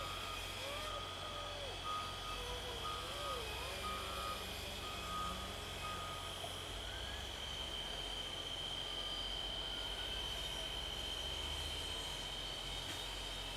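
Caterpillar wheel loader's diesel engine running while its backup alarm beeps steadily as it reverses away from the dirt pile; the beeping stops about six seconds in. A steady high-pitched tone sounds throughout over the engine's low hum.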